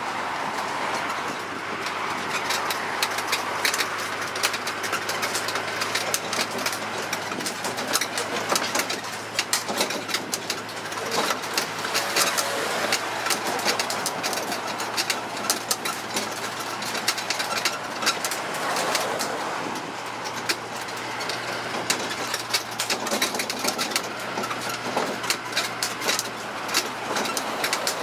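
Tourist road train driving along, its engine running with a steady low hum while the open carriage rattles and clicks.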